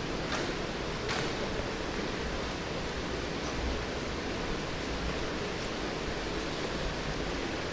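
Steady rushing noise with no clear rhythm, and a couple of faint clicks about half a second and a second in.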